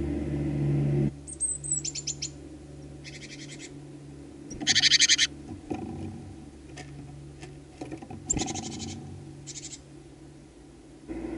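Tits at a garden feeder giving short, rapid rattling calls, about five of them, the loudest about five seconds in. A low steady rumble stops about a second in and returns near the end.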